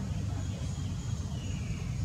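Steady low rumbling background noise, with a faint high whine that comes and goes.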